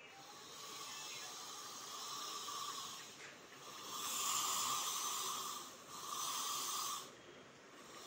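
Espresso and tea machine's steam wand hissing as it blows steam into a glass of liquid, in three stretches with short breaks, cutting off about a second before the end.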